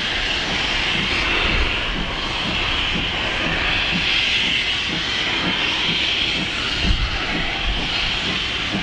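Class 42 Warship diesel-hydraulic D821's twin Maybach MD650 V12 engines running at idle, a steady high whine and hiss over a low pulsing beat about twice a second.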